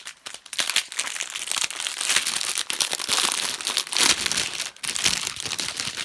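Clear plastic packaging bag crinkling and rustling as it is handled and pulled open, in a continuous dense crackle.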